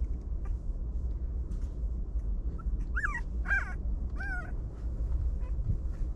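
Puppies whimpering: three short high-pitched whines about three to four and a half seconds in, over a steady low rumble.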